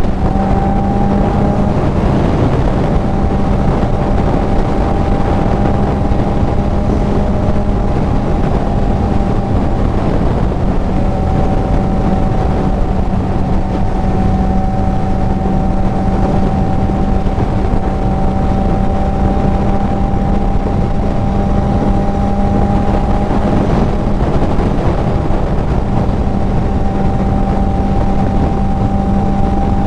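Kawasaki Z900's inline-four engine with an aftermarket full exhaust, running at nearly constant revs while cruising, mixed with wind rush on the helmet microphone.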